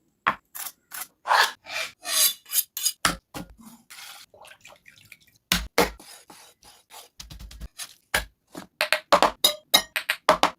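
A quick run of short food-preparation sounds: rubbing, scraping and knocking strokes, a few a second, with a short break near the middle.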